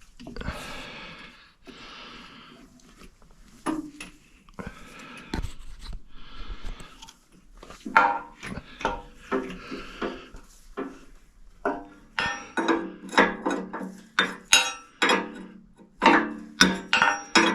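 Rubbing, sliding and light knocks as a hydraulic hose is worked through the backhoe frame, then background music of quick plucked-string notes that comes in about halfway through and grows busier.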